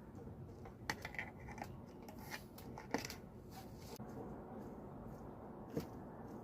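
Quiet handling noises: a few sharp clicks, about a second in, at three seconds and near the end, with a short rustle between them.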